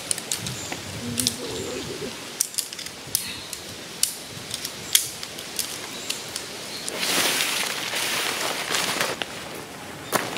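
Sharp clicks and clacks of tent pole sections being pulled apart and folded. About seven seconds in comes a longer rustle of tent fabric being handled and folded.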